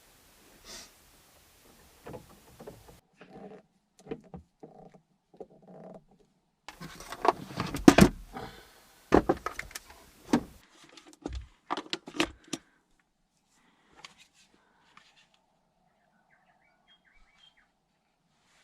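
Cables and gear being handled while a power bank is hooked up to lights: an irregular run of clicks, knocks and rustles. The handling is busiest midway, with a few short squeaks before it.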